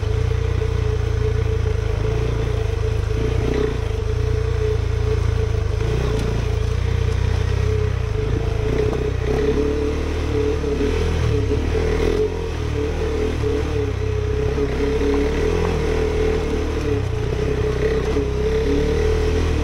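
KTM 390 Adventure's single-cylinder engine running at a fairly steady pitch as the bike rides a dirt trail, with some clatter over rough ground and a brief easing of the sound about twelve seconds in.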